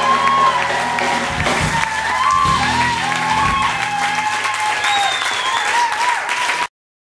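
Audience applauding and cheering as a live band's final chord rings and fades out, with wavering held high notes over the clapping. The sound cuts off suddenly near the end.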